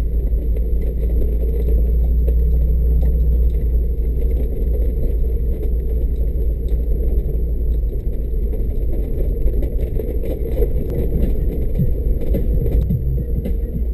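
Mercedes G500's V8 engine running at low speed as the vehicle drives along a rough dirt track, a steady low rumble with scattered small knocks and rattles.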